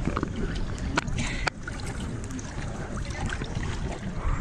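Water splashing and trickling around a small catamaran out on the sea, over a steady low rumble, with a couple of sharp knocks about a second in.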